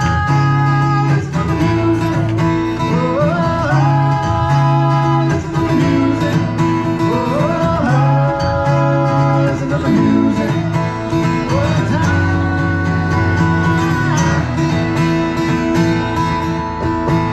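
Live music: acoustic guitar playing with a melody line that slides up into held notes about every four seconds, over a steady repeating bass pattern.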